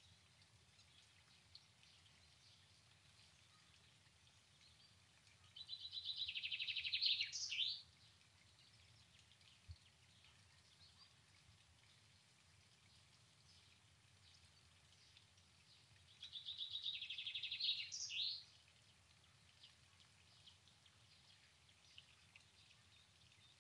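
A songbird sings twice, each song a fast trill of repeated notes lasting about two and a half seconds and ending in a brief flourish, over faint outdoor background noise.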